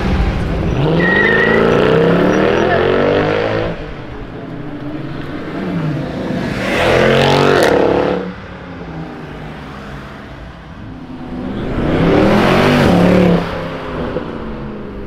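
Mercedes-Benz C63 AMG's 6.2-litre V8 exhaust accelerating hard in three loud bursts, each rising in pitch: one at the start, one about seven seconds in and one about twelve seconds in. Between the bursts the engine is quieter.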